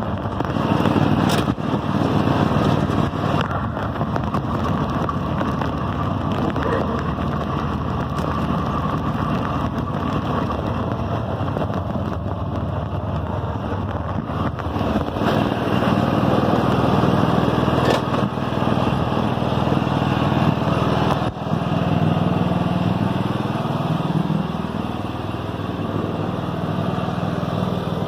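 Toro riding lawn mower's 22 hp Kohler 7000 Series V-twin engine running steadily as the mower is driven across the lawn. The engine note dips and recovers about three-quarters of the way through, with a brief knock just before.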